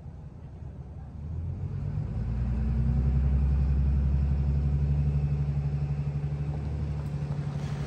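A vehicle engine running steadily with a low hum, growing louder about a second in and easing slightly near the end.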